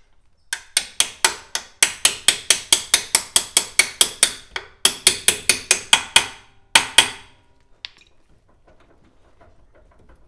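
Hammer blows ringing on steel, about four a second, driving the kingpin up out of an MG TC's front stub axle. They come in a fast run, pause briefly near the middle, resume, and end with two last blows about seven seconds in.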